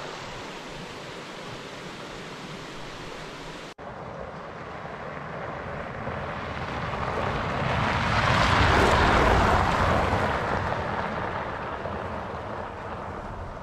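A steady outdoor rush for a few seconds, cut off abruptly, then a Toyota FJ Cruiser with its 4.0-litre V6 driving past on a gravel road: engine and tyres on the gravel growing louder as it comes closer, loudest a little past halfway, then fading as it drives away.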